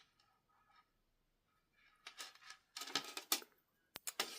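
Faint clicking and light rattling of a small metal filigree clasp and its chain being handled as it is worked together, starting about two seconds in, with a few sharper clicks near the end.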